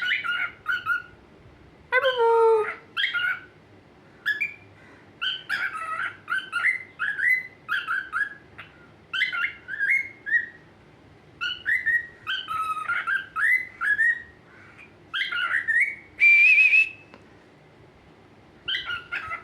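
Pet parrot chattering in bursts of short rising chirps and whistled syllables, with one longer held whistle near the end.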